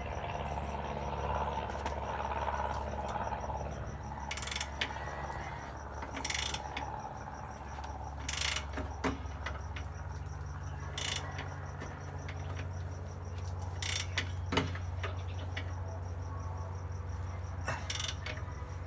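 Hand ratchet clicking in short spells, about six of them, while a ball joint is worked into place, over a steady low hum.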